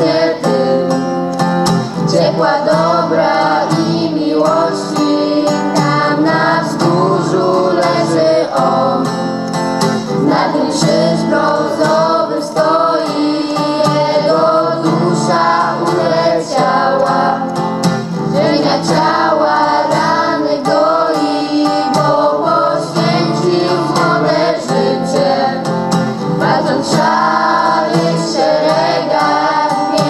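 A mixed group of young voices, boys and girls, singing a song together in Polish over instrumental accompaniment.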